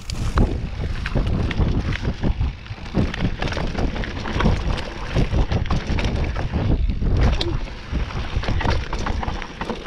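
Mountain bike ridden fast down a dirt singletrack: wind buffets the rider-mounted camera's microphone with a heavy rumble, over many quick knocks and rattles as the bike goes over bumps.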